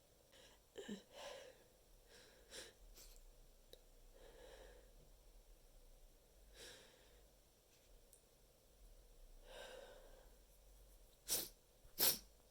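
Stifled sneezes into a handful of tissues: soft breaths and sniffs, then two short muffled sneezes in quick succession near the end, the second the louder.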